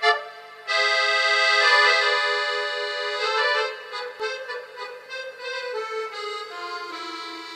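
Background music played on an accordion: held reedy chords and melody notes, fuller in the first few seconds and then softer.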